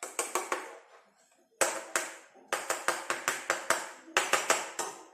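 Quick sharp taps of a kitchen utensil, about four a second, in short runs with a pause of under a second near the start.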